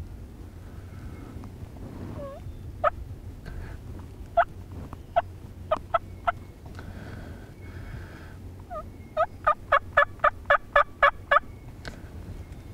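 Turkey calls: loud, sharp single notes spaced out over a few seconds, then a quick run of about ten notes lasting a couple of seconds.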